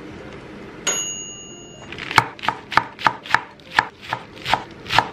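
Chef's knife chopping lettuce on a wooden cutting board: a quick, even run of strikes, about three a second, starting about two seconds in. Just before it, a single high electronic beep lasts about a second.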